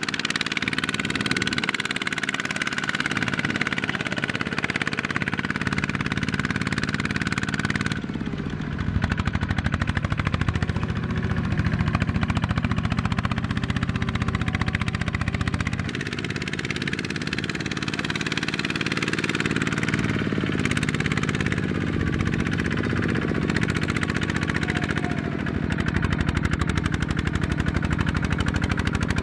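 Single-cylinder diesel engine of a Kubota walk-behind tractor running under load as it pulls a trailer of rice sacks, a rapid steady chugging. The engine note changes abruptly twice, about a third and about halfway through.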